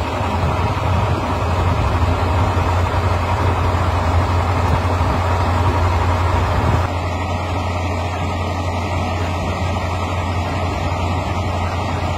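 Heavy military truck's engine idling: a steady low hum with no blasts or launches. The level drops slightly about seven seconds in.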